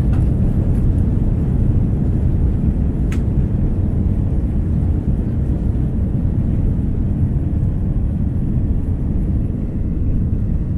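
Steady low rumble of an Airbus A330-200's cabin noise in flight, with one faint click about three seconds in.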